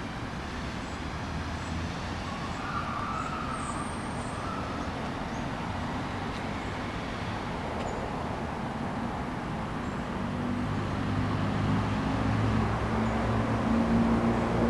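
Outdoor road-traffic noise: a steady hiss of passing traffic, with a vehicle's engine hum building and growing louder over the last few seconds.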